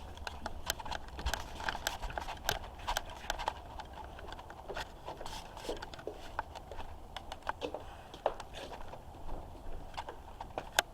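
Irregular close rustling, scraping and light cracking, as of a person moving about and pushing through to find a way out, with scattered small clicks and no steady sound.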